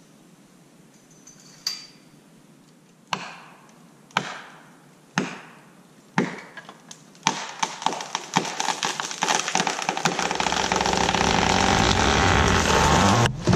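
Four sharp wooden knocks about a second apart, then a red maple going over: a growing crackle and crash of splitting wood and branches tearing through the neighbouring trees that stops abruptly near the end.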